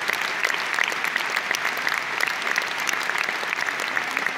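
Large audience applauding steadily: many hands clapping at once, blending into a dense, even sound.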